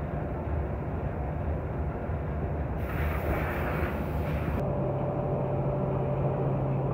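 Workshop machinery running with a steady low rumble. About three seconds in, a hiss joins for under two seconds, and then the running settles into a steady hum.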